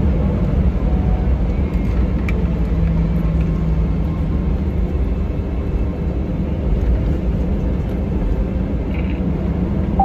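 Airbus A319 airliner rolling out on the runway just after touchdown, heard inside the cabin: a loud, steady low rumble of engines and wheels as it slows with its spoilers up.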